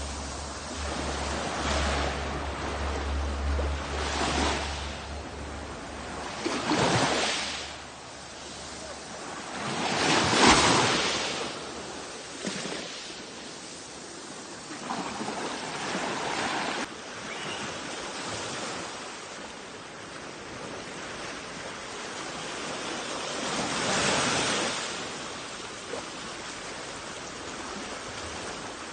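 Sea surf washing onto the shore: a steady wash of waves with louder breakers about seven, ten and twenty-four seconds in, the one near ten seconds the loudest.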